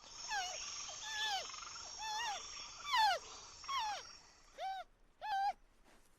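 A series of about eight short animal calls, each rising then falling in pitch, over a steady high buzz that stops about four seconds in.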